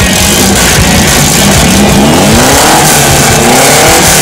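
VW Beetle's air-cooled flat-four engine revved up twice in the second half, each rev a rising pitch, over rock background music.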